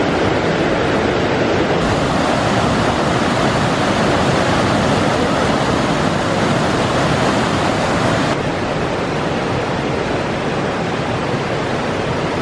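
Forest stream running high, a steady loud rush of water, dipping slightly in level about eight seconds in.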